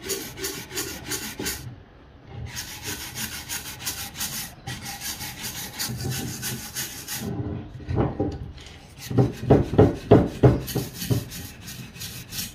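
Steel wire hand brush scrubbing caked dirt off a rough, weathered piece of Braúna wood in rapid back-and-forth strokes, with a couple of short pauses. The strokes get heavier and louder a little past halfway.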